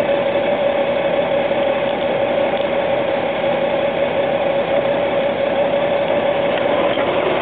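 Honda GL1800 Gold Wing's flat-six engine running steadily at low speed, picked up by a handlebar-mounted camcorder together with road and wind noise, with a steady mid-pitched whine over it.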